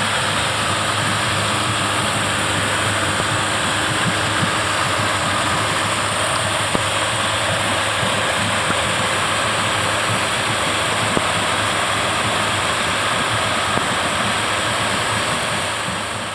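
Twin Honda 200 hp V6 four-stroke outboard engines running steadily under way, heard close up with their cowlings off, under a constant rushing hiss. The sound fades near the end.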